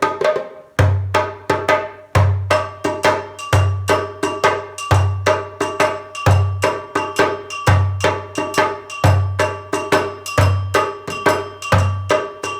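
One drummer playing an African rhythm. A deep bass-drum stroke comes about every 1.4 seconds under a steady pattern of sharp, ringing strokes about four a second.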